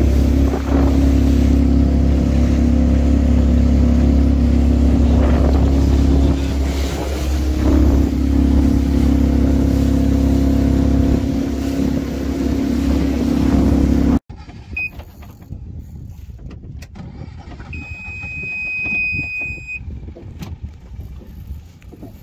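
Small fishing boat's engine running steadily while the boat is underway on open water. It cuts off abruptly about two-thirds of the way in, leaving quieter sounds with a brief, high steady tone lasting about two seconds near the end.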